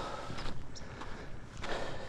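A hiker's footsteps on a trail, a few uneven steps over a low, steady rumble.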